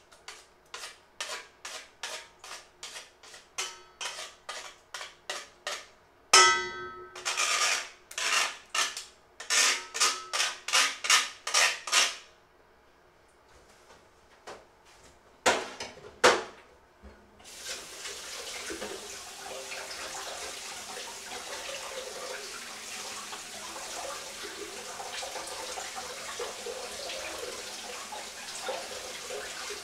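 Food being grated on a stainless-steel hand grater over a steel bowl, about two scraping strokes a second, with a ringing metal knock about six seconds in and more strokes until about twelve seconds. After two sharp knocks, a steady rush of running water, like a tap left on, fills the second half.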